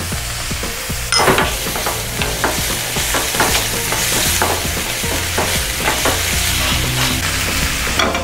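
Chopped garlic and whole button mushrooms sizzling in olive oil in a nonstick frying pan while a wooden utensil stirs them, with a steady hiss and many small scrapes and taps. A sharp knock comes about a second in.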